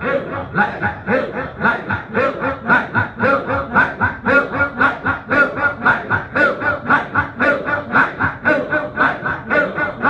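A group of men chanting an Arabic devotional recitation (sholawat) together, led by one voice on a microphone, fast and rhythmic at about four syllables a second.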